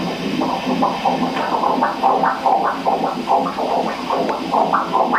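Ultrasound machine's Doppler playing a fetal heartbeat: fast, even whooshing pulses.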